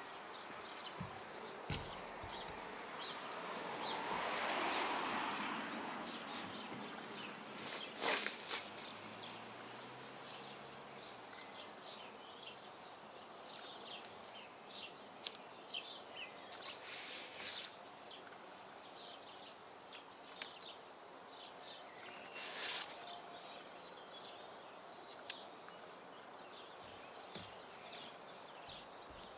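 Outdoor ambience carried by a steady, high, rapidly pulsing insect chirp. A swell of rushing noise rises and fades about four seconds in, and a sharp knock comes about eight seconds in, with a few fainter knocks later.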